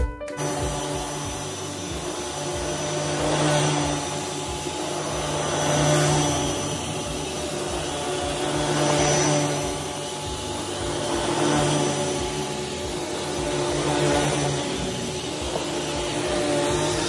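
Vacuum cleaner running steadily over thick pile carpet, its sound swelling and fading about every two and a half seconds.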